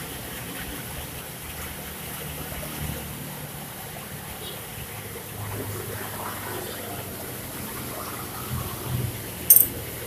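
Steady hiss of heavy rain, with a sharp click just before the end as metal engine parts are handled.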